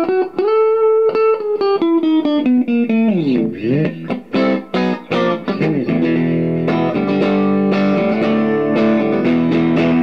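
Custom Strat-Tele style electric guitar with a hardtail string-through bridge, played through an amp's clean channel: single ringing notes, a note sliding down and back up about three seconds in, then chords strummed and left ringing.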